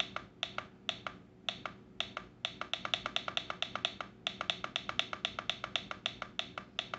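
Rapid small plastic clicks from the minute-set button on a Jensen JCR-210 clock radio being pressed over and over, about five or six clicks a second with a few short pauses, stepping the minutes when setting the clock.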